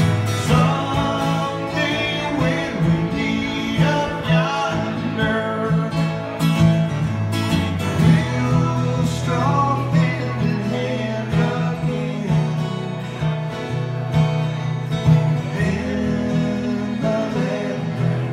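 Two acoustic guitars strummed and picked in a country song, with a man singing the melody.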